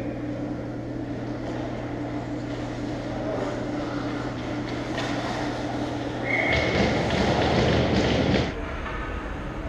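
Ice rink ambience during play: a steady low hum with faint, scattered skate and stick sounds. A louder, scraping rush of noise comes for about two seconds past the middle.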